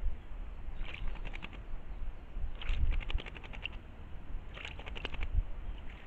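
A bird calling at a woodland water hole: three short rattling series of rapid notes, about two seconds apart.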